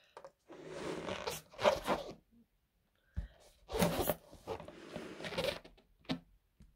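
Breaths blown hard into a latex balloon to inflate it: several long puffs of rushing air with short pauses between them.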